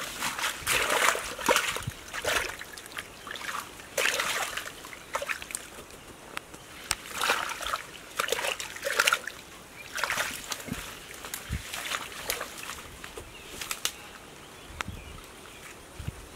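Hands splashing and squelching through shallow muddy water in irregular wet bursts, feeling in the mud for fish. The bursts fall away in the last couple of seconds.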